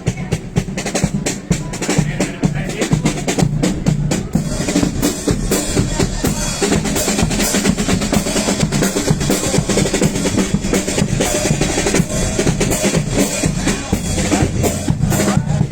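Carnival comparsa percussion: bass drum and snare drum playing a steady marching rhythm with rolls.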